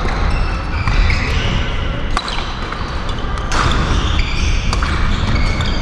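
Badminton rally: a string of sharp racket-on-shuttlecock hits, the strongest about a second and a bit apart, with short squeaks of court shoes on the hall floor over a steady low hall rumble.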